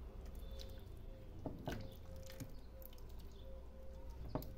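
Wooden spoon stirring a brothy lamb stew in a stainless steel pot: soft wet squelching, with a few light knocks of the spoon against the pot.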